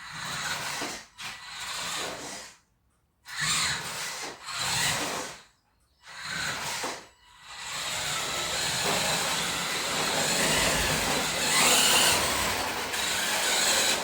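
A radio-controlled toy car driving while towing another toy car: a rough, noisy whirr of its small motor, gears and wheels running over the ground. It comes in several short stretches broken by sudden cuts, then runs on steadily for the last six seconds or so.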